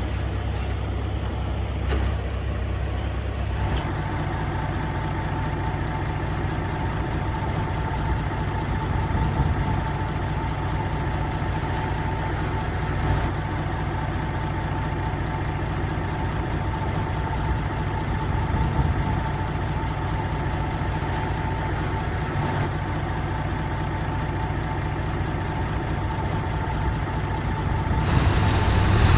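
Heavy diesel engine of earthmoving equipment running steadily at a low, even speed. A steady high tone joins about four seconds in, and the engine grows louder just before the end.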